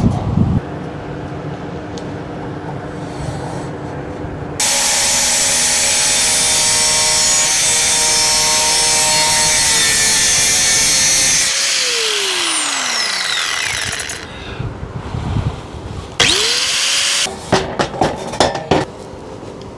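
Angle grinder cutting metal cable trunking. It runs free for a few seconds, then makes one loud cut of about seven seconds, then the motor winds down with a falling whine. Near the end it spins up again, rising in pitch, for a few short cuts.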